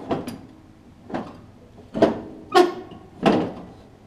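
About five separate metallic clunks with short ringing tails, a second or less apart, as a riding mower's steel cutting deck and its mounting hardware are handled and jostled.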